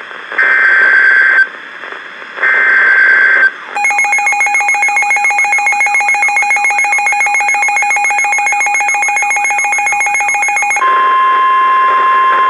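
Emergency Alert System signal from a NOAA Weather Radio broadcast: two screeching digital header data bursts of about a second each, a second apart, then a fast-pulsing, high-pitched electronic alarm tone for about seven seconds. Near the end it gives way to the steady 1050 Hz weather radio warning alarm tone.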